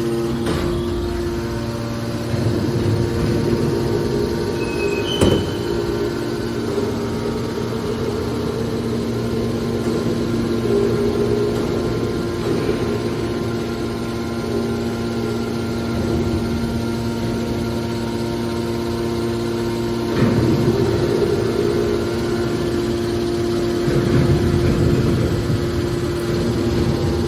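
Hydraulic metal baling machine running with a steady hum. A single sharp knock comes about five seconds in, and there are louder rumbling spells twice near the end.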